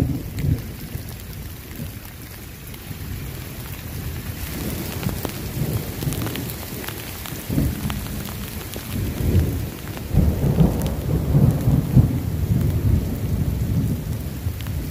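A thunderstorm: heavy rain falling with thunder rumbling. The rain's hiss grows stronger a few seconds in, and the rumble swells louder in the second half.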